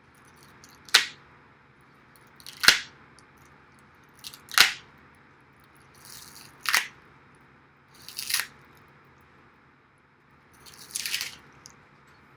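Packing wrap being ripped off in six short, sharp rips, about one every two seconds.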